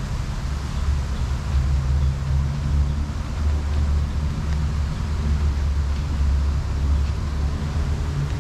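Steady low rumble of outdoor city ambience, with an even background hiss and no distinct events.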